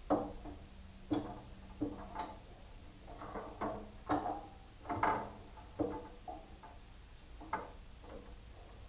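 Irregular light clicks and knocks, about one or two a second, of a tool being set down and shifted against a bandsaw's table while the saw's setup is checked.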